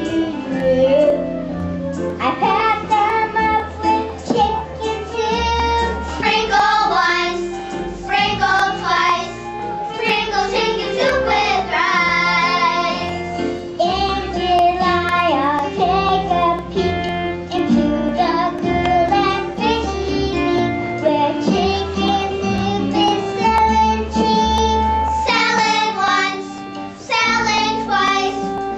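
Children singing a song with instrumental accompaniment under the voices.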